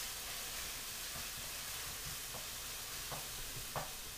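Chopped onions sizzling steadily in hot oil in a stainless steel pan, being sweated until translucent rather than browned. A wooden spoon stirring them gives a few light taps in the second half.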